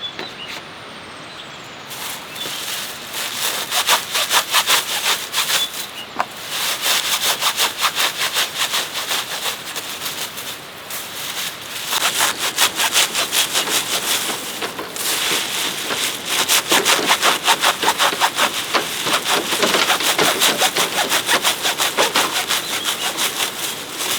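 Hand saw cutting bamboo, with quick back-and-forth strokes in several runs broken by short pauses, starting about two seconds in.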